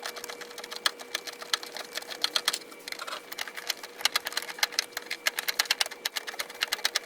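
A ratchet wrench with a 10mm socket clicking rapidly as the bolts of a bracket are screwed back in, a fast irregular run of sharp ticks.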